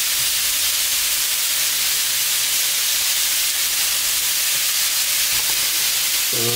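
Chicken skewers, Adana kebabs and sausages sizzling on a hot ribbed grill plate as oil is brushed over them: a steady hiss.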